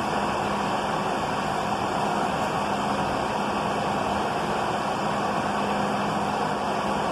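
Class 153 diesel railcar's Cummins engine running steadily under the station roof: a constant hum with a low drone underneath.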